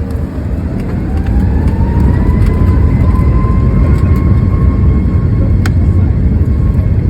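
Boeing 737 MAX's CFM LEAP-1B engines spooling up to takeoff thrust at the start of the takeoff roll. The whine rises in pitch over the first couple of seconds and then holds steady over a loud, heavy low rumble, which grows louder about one and a half seconds in.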